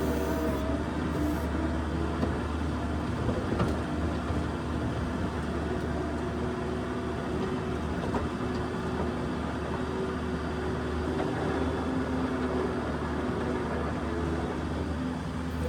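New Holland skid steer's diesel engine running steadily, with a constant low drone.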